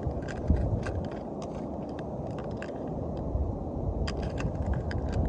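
Wind rumbling on the microphone, with scattered small clicks and rattles of fishing tackle being handled and sorted through.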